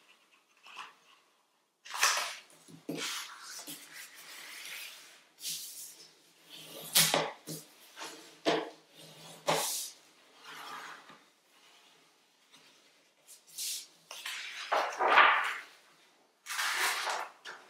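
A sheet of paper being handled on a tabletop: irregular swishes and rustles, with a few sharp crinkles, as hands smooth and slide it and begin to fold it. The longest and loudest rustle comes about fifteen seconds in, as the sheet is lifted and bent over.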